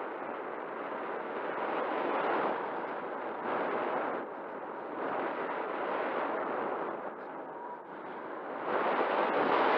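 Airflow rushing over the onboard camera's microphone on a Volantex Phoenix 2400 glider soaring with its motor off. The rush swells and eases every second or two and grows louder near the end.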